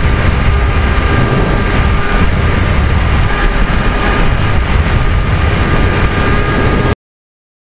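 Onboard sound of a Multiplex Easystar electric RC plane in flight: heavy wind rush on the microphone with the steady whine of its electric motor and propeller. The sound cuts off suddenly about seven seconds in.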